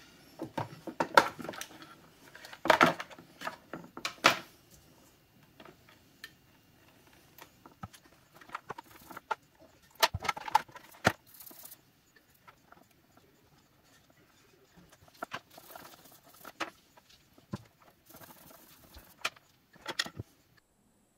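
A drill's circuit board and small plastic parts being handled by hand: scattered clicks, taps and clatters, busiest in the first few seconds and again about halfway through.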